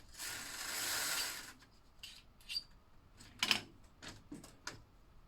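Vintage Tyco slot car running a short burst along its plastic track with a rasping whir for about a second and a half, then stopping. A few light clicks and knocks of plastic track and car follow.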